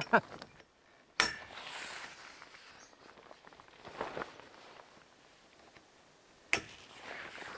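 Awning tent wall being clipped onto the awning's frame bar: two sharp clicks, about a second in and near the end, each followed by the rustle of heavy canvas, with a softer rustle in between.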